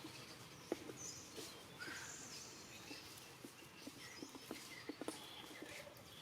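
Faint outdoor ambience: scattered light clicks and taps, with a few faint high chirps about one and a half to two and a half seconds in.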